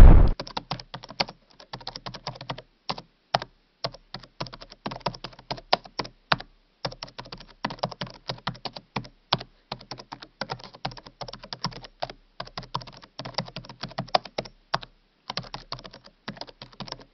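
Computer keyboard typing sound effect: rapid, irregular key clicks with a few short pauses.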